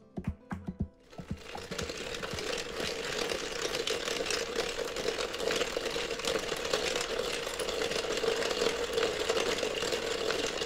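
Last few plucked guitar notes, ending about a second in, then a steady dense crackling made of rapid small clicks.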